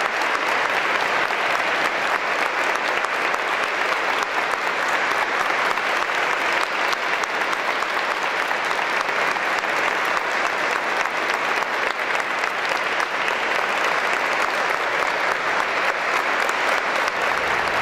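Audience applauding steadily: dense, sustained clapping from a concert crowd.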